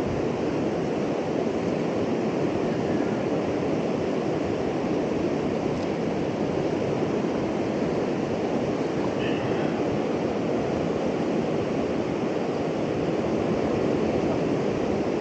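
Fast mountain river rushing steadily over rocks and rapids.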